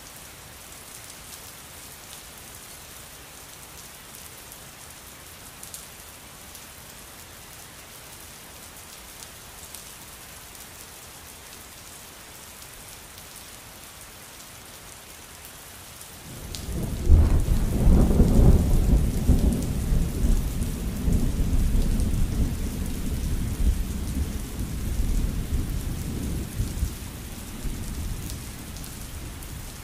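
Steady rain falling, then just past halfway a loud clap of thunder breaks suddenly and rolls on as a low rumble, slowly fading toward the end.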